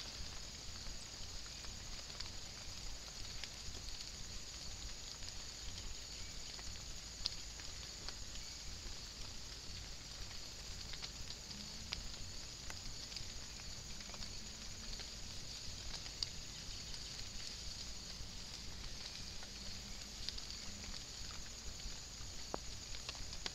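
Light rain heard through a trail camera's microphone: scattered single drop ticks over a steady high hiss.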